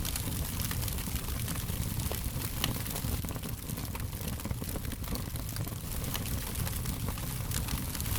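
Fire crackling: many small irregular pops and snaps over a steady low rush.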